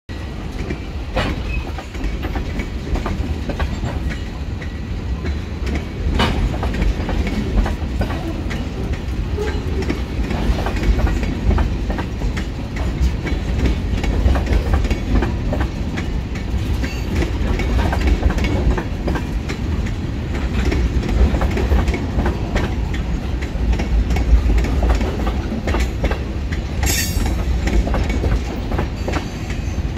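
Freight train of tank cars rolling slowly past, steel wheels knocking over the rail joints over a steady low rumble. A brief high-pitched squeal sounds about 27 seconds in.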